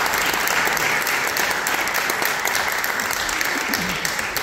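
Audience applauding, a dense steady patter of many people clapping.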